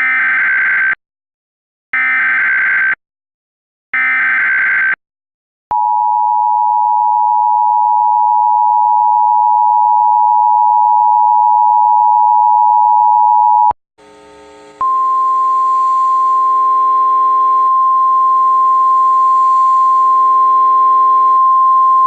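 Emergency Alert System tones: three one-second bursts of SAME header data, a second apart, then the two-tone attention signal held steady for about eight seconds. After a brief break, a single steady alert tone starts, with fainter tones and hiss beneath it.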